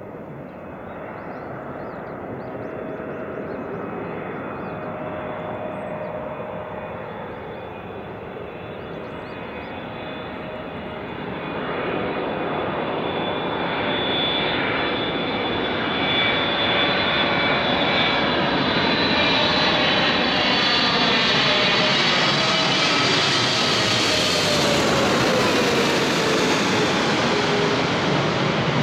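Twin GE90 turbofan engines of a FedEx Boeing 777 freighter on landing approach, a jet roar with a steady fan whine that grows steadily louder as the aircraft closes in. Near the end it passes low overhead and its tones glide downward in pitch.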